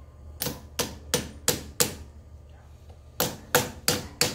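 Ball-peen hammer tapping in two quick runs of about five light strikes each, driving a new rubber grease seal onto a tractor's front wheel spindle. The old seal is set over the new one so the hammer does not strike the new seal directly.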